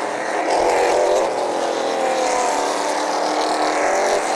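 Outlaw super late model race cars' V8 engines running at caution-lap pace as the field circulates past, with several engine notes overlapping and shifting slowly in pitch.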